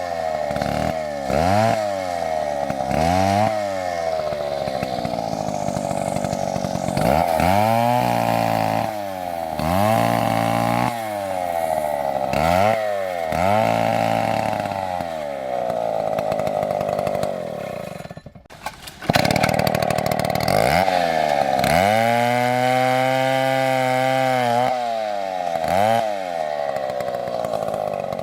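Chainsaw engine under throttle, its pitch dipping and climbing back about once a second. About 18 s in it drops out briefly, then it runs at a steady high speed for a few seconds before the dips return.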